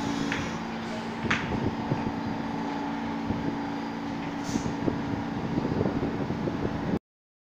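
Subway train standing at the platform, its cars giving off a steady mechanical hum with a few short knocks and clicks. The sound cuts off suddenly near the end.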